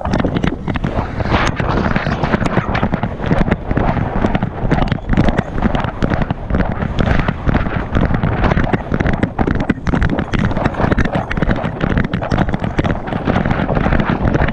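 Wind buffeting and knocking from an action camera strapped to a bloodhound's back as the dog moves, with frequent sharp knocks over a steady rough rumble.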